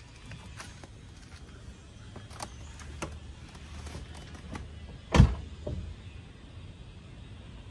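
Volkswagen Scirocco's driver's door handled as someone climbs in: small clicks and knocks, then the door shut with one loud thump about five seconds in, followed by a smaller knock.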